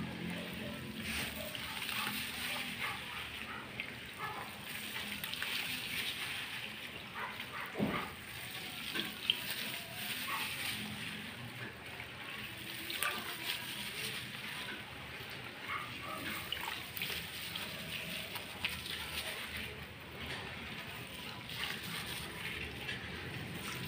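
Gloved hands mixing a thick, wet purple halaya batter in a large aluminium wok, squeezing out lumps so they dissolve. The result is a continuous wet squishing and swishing with scattered small ticks, one sharper than the rest about nine seconds in.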